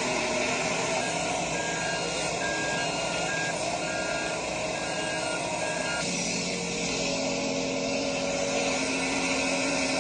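A vehicle's reversing alarm beeping at an even rate over steady engine and site noise, stopping about six seconds in; a steady low engine hum follows.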